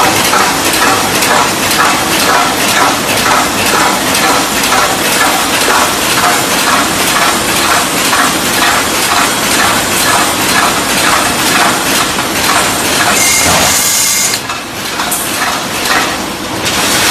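Automatic welded wire mesh panel machine running: its welding head cycles in a steady, rhythmic metallic clatter of about two strokes a second over a constant hiss. About 13 seconds in the rhythm breaks off into a hiss and a brief lull.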